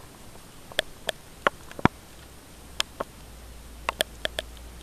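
About eleven short, sharp clicks at irregular intervals, the loudest a little under two seconds in, over a faint low hum that comes in about two seconds in.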